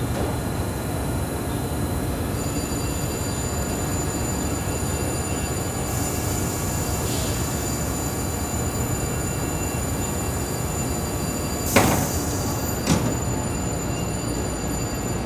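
Steady drone of industrial laundry machinery with faint high whines. Near the end, two sharp metal clanks about a second apart: the heavy stainless-steel door of a 450-pound industrial washer shutting and latching.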